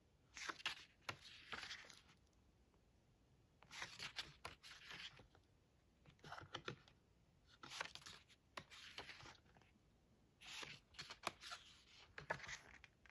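Paper pages of a hardcover photobook being turned by hand: rustling and flapping with small sharp clicks, in about five short bursts a couple of seconds apart.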